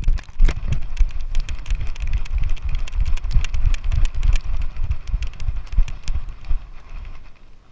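Rapid, uneven thumps and sharp clicks of a GoPro being jostled while running, the knocking dying away near the end.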